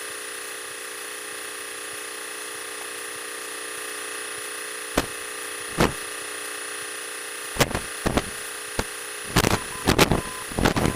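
Small airplane's engine and propeller drone heard through the headset intercom, a steady thin hum. From about halfway, a run of short sharp crackles and clicks grows more frequent towards the end.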